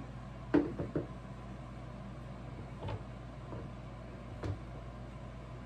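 Clunks of a rifle and its metal parts being handled and set down on a workbench gun vise: one sharp knock about half a second in, two lighter ones right after, then two softer knocks later.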